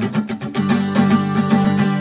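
Acoustic guitar strummed in a steady rhythm, with a chord change about half a second in.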